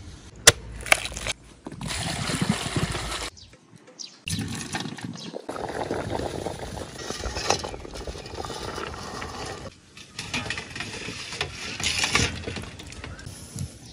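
Water splashing as fertilized duck eggs are washed by hand in a metal pot, with two sharp knocks about half a second apart near the start; later, water bubbling around the eggs as they boil.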